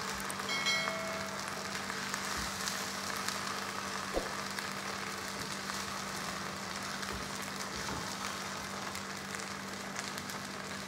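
Sarson ka saag sizzling and crackling in a pan on a gas burner: a steady light spatter of fine ticks. A brief chime sounds about a second in.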